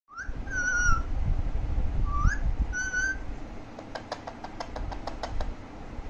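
Alexandrine parakeet whistling: twice a short upward whistle followed by a longer held note. A quick run of sharp clicks follows.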